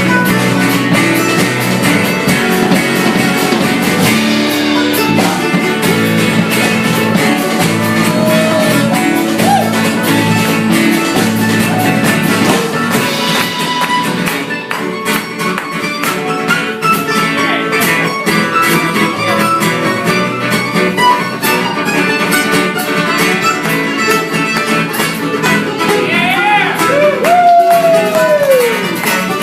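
Live acoustic string band playing an instrumental passage of a bluegrass-style tune, with guitar and fiddle. There are sliding notes near the end.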